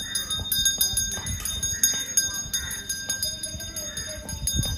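Metal bells ringing continuously, struck rapidly over and over, so their ringing tones hang steadily in the air.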